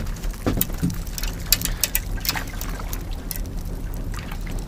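Water trickling and lapping against the hull of a small drifting boat, with a string of sharp clicks and taps from hands handling a fishing rig.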